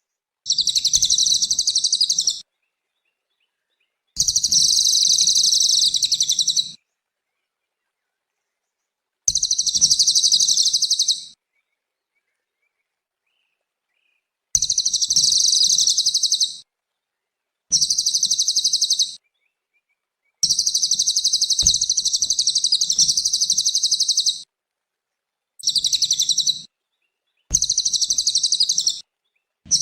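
Cililin bird singing: rapid high-pitched chattering song in about nine bursts of one and a half to four seconds each, separated by short dead-silent gaps, with a faint low rumble under each burst.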